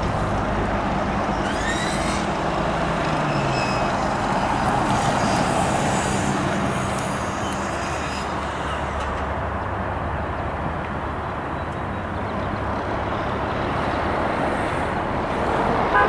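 Road traffic: vehicle engines and tyre noise on a highway, steady and gently swelling, with a brief rising whine about two seconds in.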